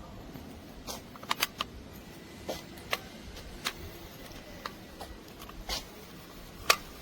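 Irregular sharp plastic clicks and taps, about ten of them, from a double retractable dog leash being handled and its lock buttons worked. The sharpest click comes near the end.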